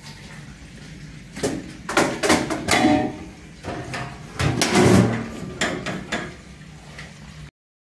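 Metal clanks and knocks from a stainless-steel potato chip cutter being reassembled, as its knife block is set back in and its hopper is refitted. There are two clusters of sharp knocks, a few ringing briefly.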